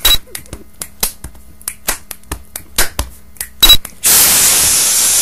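About a dozen sharp, irregular clicks, then a loud, even hiss of just over a second near the end.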